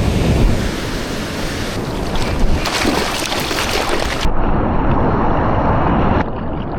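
Ocean surf rushing and washing, with wind buffeting the microphone. The sound turns suddenly duller a little over four seconds in.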